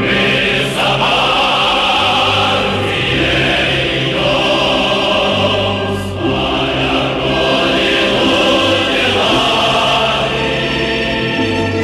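A choir singing with orchestral accompaniment, in long held notes.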